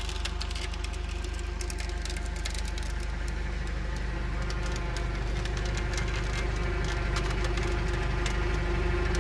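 YuMZ D-65 tractor's diesel engine running steadily while driving a PTO forestry winch converted from a Star 66 truck winch, which is pulling in its steel cable. Rapid clicks run over it, and a whine grows louder over the last couple of seconds.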